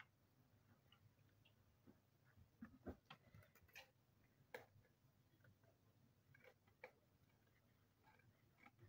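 Near silence, with a few faint, scattered light ticks and rustles from stretch denim fabric being handled on a tile floor.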